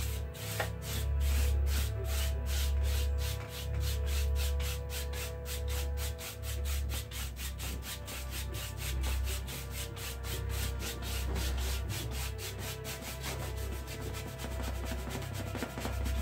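A wide flat bristle paintbrush scrubbing back and forth on a stretched canvas, making a quick rhythmic scratching of several strokes a second that grows faster as it goes on.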